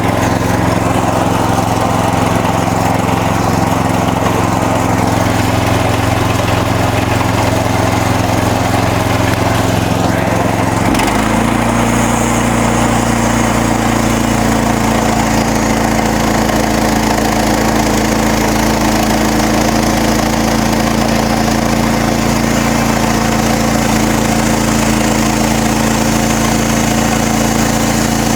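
Gasoline engine of a MechMaxx SM32 bandsaw sawmill running steadily; about eleven seconds in its note steps up slightly and holds there.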